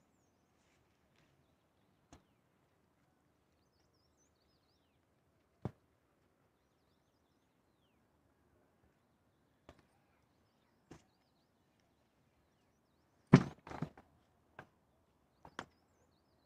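Scattered sharp clicks and knocks at irregular intervals, the loudest a quick run of knocks a little after the middle, over faint high bird chirps.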